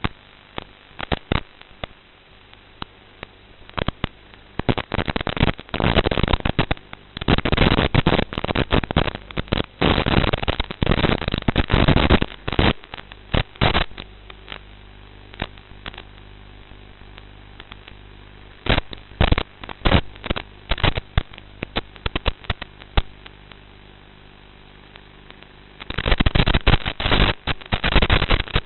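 Crackling static in irregular bursts over a steady electrical hum, the noisy audio of an analog FPV video link; the crackle thickens into dense spells about five seconds in and again near the end.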